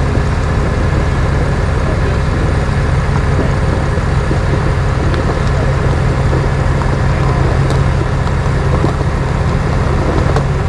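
A truck engine running steadily with an even low drone and no change in speed.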